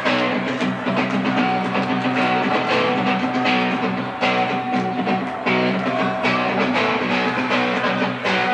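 Rock band playing: electric guitars holding chords over a steady drum beat.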